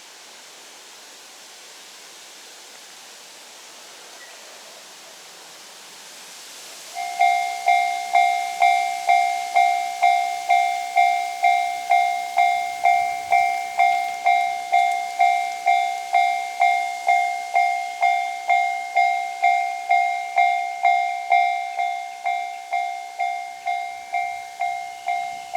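Japanese railroad crossing warning bell starting about seven seconds in, after a steady faint hiss. It is a single-pitched electronic bell struck in an even rhythm of about two strikes a second, the signal that a train is approaching the crossing.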